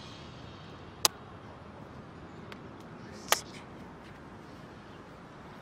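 Quiet, steady background hiss broken by two sharp clicks, one about a second in and a louder one a little past three seconds, with a few fainter ticks between.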